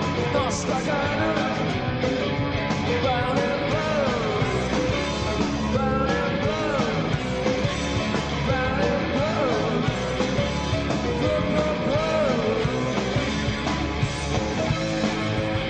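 Rock band playing live: drums, bass, guitars and keyboards, with a lead line that bends up and down in pitch over a steady, dense backing.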